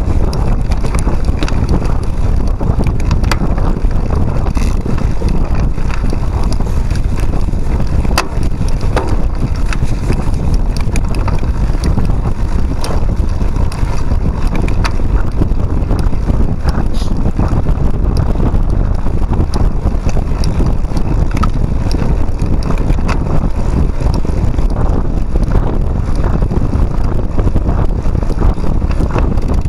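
Cyclocross bike ridden fast over a forest trail: steady wind buffeting on the handlebar-mounted microphone and tyre rumble, with frequent small clicks and rattles from the bike.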